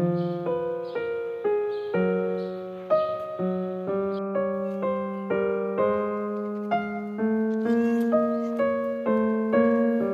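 Background piano music: a gentle melody of struck notes, about two a second, each fading after it is played.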